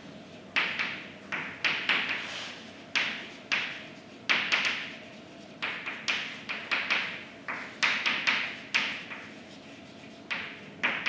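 Chalk writing on a blackboard: an irregular run of sharp taps and short scratches, about two to three a second, with brief pauses between words.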